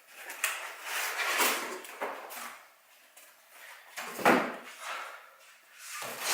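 Cardboard box and packing being shuffled and scraped during unboxing, with one heavier thump about four seconds in.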